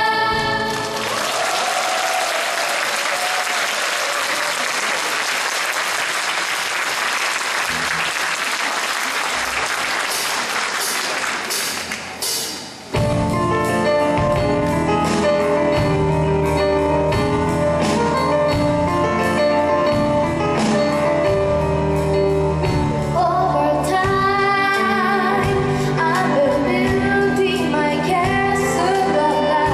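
Audience applauding for about twelve seconds after a song ends. Then, about thirteen seconds in, an orchestra of strings, winds and grand piano suddenly starts playing again with a steady beat.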